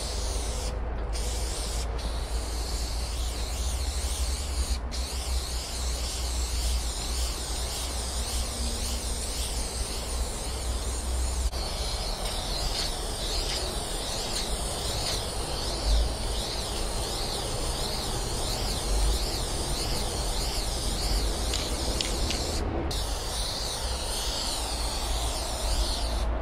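Aerosol spray-paint can hissing almost continuously as black paint is sprayed, with a few brief breaks where the nozzle is let go. A steady low rumble runs underneath.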